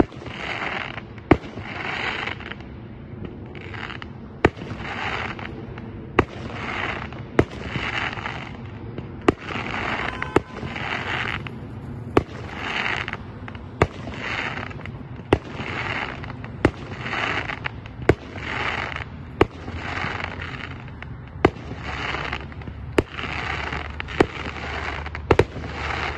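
Loots Vuurwerk Classic Cars fireworks cake firing shot after shot: sharp launch pops about every one and a half seconds, with a burst of hissing crackle of about a second between them.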